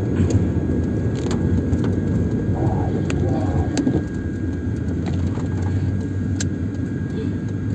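Cabin noise of a Mercedes-Benz W202 driving on a wet road in rain: a steady low rumble of engine and tyres, with scattered sharp ticks.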